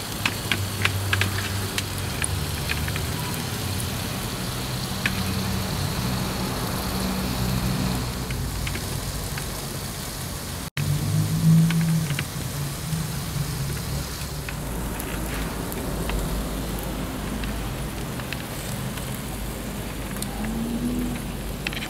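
Beef sizzling on a wood-fired asado grill over glowing embers: a steady hiss with scattered small crackles and pops from the coals. The sound breaks off for an instant about halfway through.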